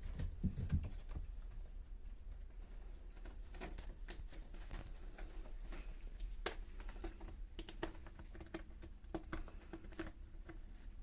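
Scattered light clicks and taps, irregular and some fairly sharp, with a few low thumps about half a second in, over a faint low hum.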